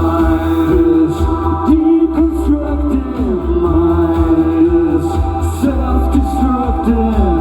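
Live band music: a heavy, steady bass with a held melody line on top that slides between notes every second or two.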